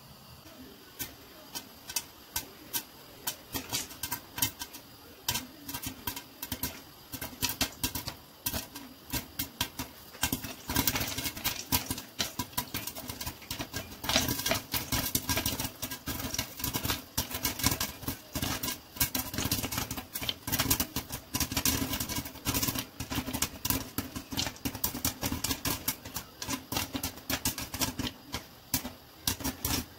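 Corn kernels popping in a covered pan under a glass lid: scattered sharp pops at first, coming thick and fast from about ten seconds in.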